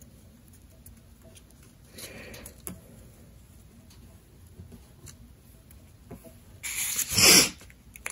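Printer paper being creased and handled on a cutting mat: soft rustling and scratching, with a louder, brief rustle of the paper being turned over near the end.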